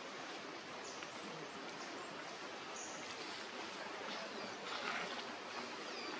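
Outdoor ambience: a steady hiss of background noise with a few faint, short high-pitched chirps.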